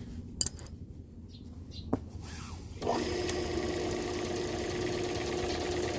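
Power sprayer pump switched on about three seconds in and running steadily with a constant hum, just after its worn packing was replaced. Two sharp clicks come before it starts.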